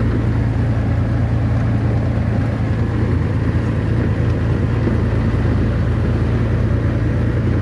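Steady low engine hum and road noise inside a moving vehicle's cab while driving at speed.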